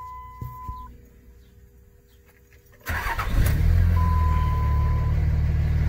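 A 2004.5 Dodge Ram's 5.9 L Cummins inline-six turbodiesel is started about three seconds in and settles straight into a steady idle heard from inside the cab. A steady electronic beep sounds in the first second and again for about a second after the start.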